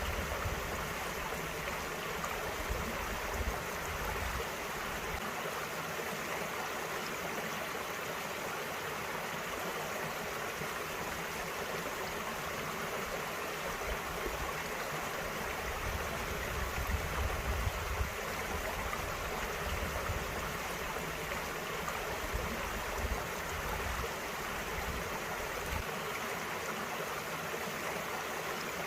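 Small mountain valley stream flowing, a steady babble and rush of water over stones.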